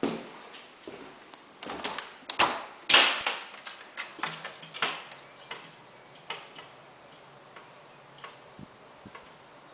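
Clicks and knocks of a white-framed tilt-and-turn window as its handle is turned and the sash is swung open, the loudest knock about three seconds in. After that only a few faint scattered ticks are heard.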